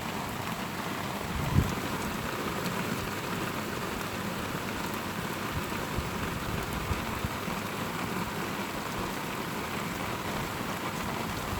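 Heavy rain falling steadily, an even hiss of rain on surfaces, with one brief thump about one and a half seconds in.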